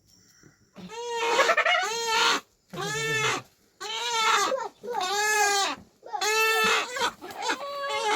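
A goat bleating over and over, about six wavering calls in quick succession, each rising then falling in pitch.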